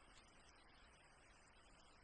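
Faint, even hiss of rain falling in a spruce forest, with wind in the trees.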